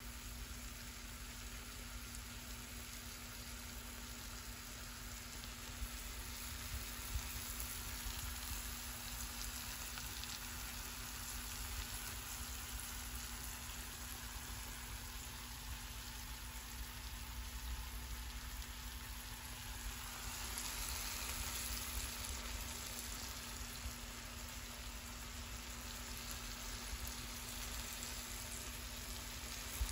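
Beyond Meat plant-based ground meat frying in oil in a nonstick skillet: a steady crackling sizzle with a few small pops, growing a little louder about two-thirds of the way through.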